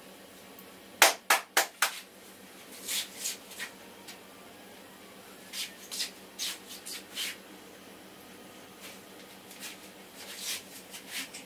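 A barber's hands striking the head in an Indian head massage: four quick, sharp, loud strikes about a second in, then softer pats in short runs.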